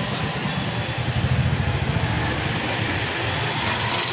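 Steady outdoor noise with a heavy, unsteady low rumble.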